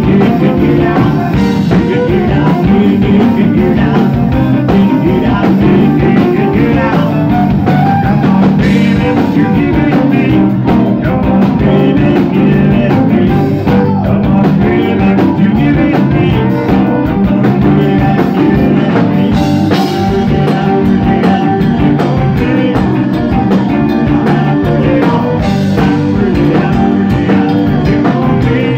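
Cajun band playing live and loud: button accordion, fiddle, electric guitar, bass and drum kit, with a man singing.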